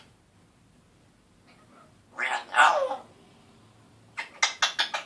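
Congo African grey parrot calling: a scratchy, meow-like call that falls in pitch, about two seconds in, then a fast run of about eight short clicking notes near the end.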